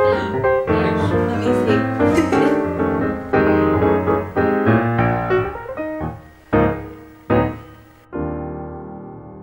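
Background piano music: a lively run of notes, thinning out to two separate struck chords a little past halfway, then a soft held chord that slowly fades.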